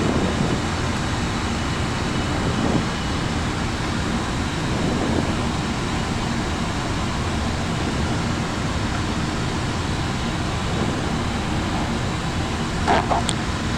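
Steady flight-deck noise of an Airbus A340-300 on approach, with the landing gear down and flaps extended: an even rush of airflow and air-conditioning hiss. A brief click or two comes near the end.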